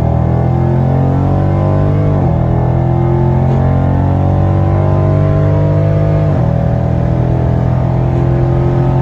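Dodge Hemi V8 with catless mid pipes at full throttle, its exhaust note climbing steadily through each gear. The pitch drops suddenly on two upshifts, about two seconds in and again past six seconds.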